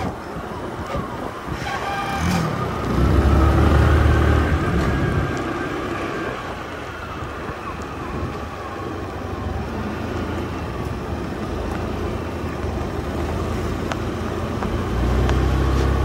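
Motorbike on the move: engine running with wind rushing over the microphone, loudest about three to five seconds in.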